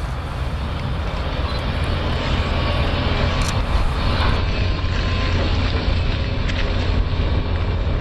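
John Deere tractor's diesel engine running steadily, a low drone that grows louder over the first few seconds and then holds.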